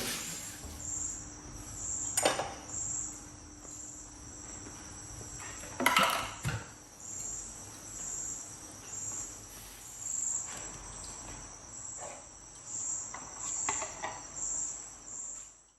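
Crickets chirping in a steady, even rhythm, a little faster than one chirp a second, with a few sharp clinks and knocks of dishes or cutlery, the loudest about six seconds in.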